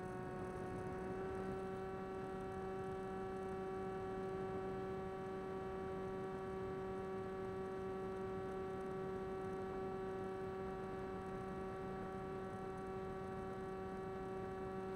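Electric motor and pusher propeller of an Easystar II RC plane in flight, a steady whining drone. It steps up slightly in pitch right at the start as throttle is added, then holds an even cruise.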